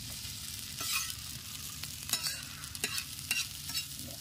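Spatula stirring egg bhurji rice in a pan over the fire, the food sizzling steadily, with a string of short scrapes and clicks as the spatula hits the pan.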